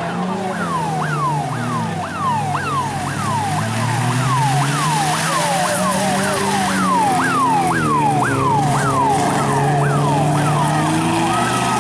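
A siren cycling in quick sweeps, each rising sharply and falling off, about two a second, over a vehicle engine's wavering drone.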